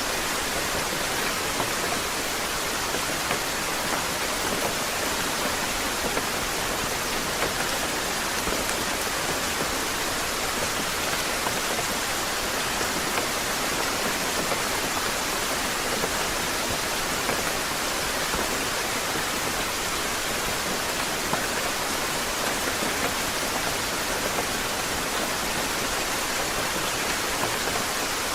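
Steady rain falling, an even dense hiss of drops with faint small ticks scattered through it.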